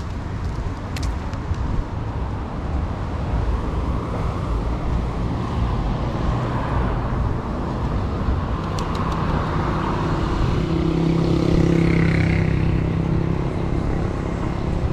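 Road traffic: cars passing with a constant rumble, and about ten seconds in a vehicle's engine hum builds up and is loudest a couple of seconds later.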